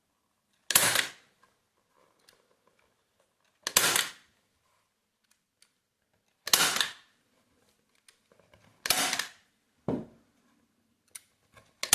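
Staple gun firing staples through cushion cloth into a wooden snooker table rail: a sharp shot about every two and a half to three seconds, six in all, one of them lighter.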